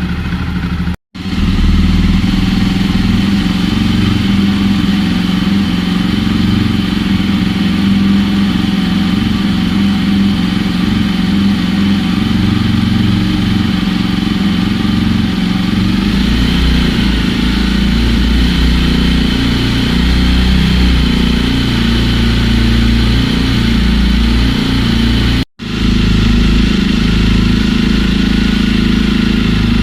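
Jawa motorcycle's single-cylinder engine running steadily at idle through its exhaust. The sound cuts out briefly twice, and about halfway through the low end gets deeper.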